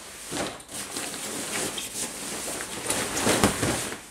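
Camouflage fabric bivy sack rustling and flapping as it is unrolled, lifted and shaken out, with a louder swish about three seconds in.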